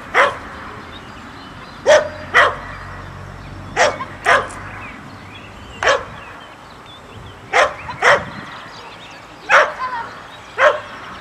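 Small dog barking sharply and repeatedly, about ten barks, several coming in pairs about half a second apart.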